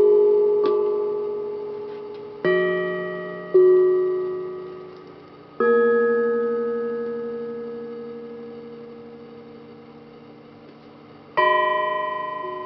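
Hamon, a cleft iron folk instrument, struck one note at a time, each ringing bell-like and fading slowly. Several notes come in quick succession early on, then one long fade before a final note near the end.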